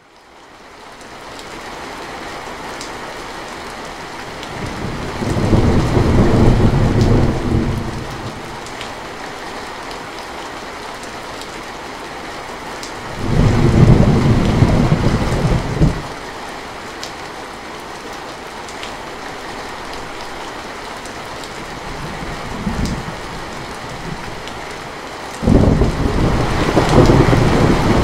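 Heavy rain falling steadily on a metal roof, fading in from silence over the first couple of seconds. Rolling thunder breaks over it three times in long rumbles, with a brief fourth rumble shortly before the last.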